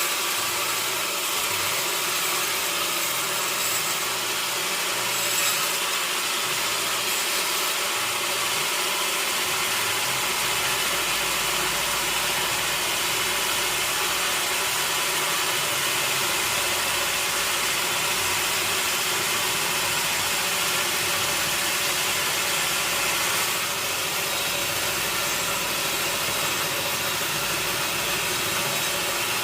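Sawmill saw running and cutting through a log, giving an even, continuous sawing noise that does not change.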